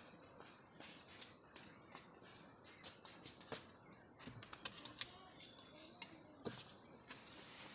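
Insects chirping steadily in a high, evenly pulsing band, with a few light knocks about halfway through as firewood at the stove is handled.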